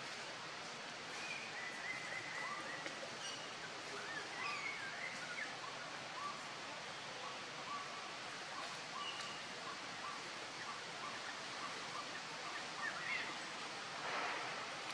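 Outdoor ambience: a steady faint hiss with birds chirping, including a run of short, evenly repeated notes in the middle. A brief burst of noise comes near the end.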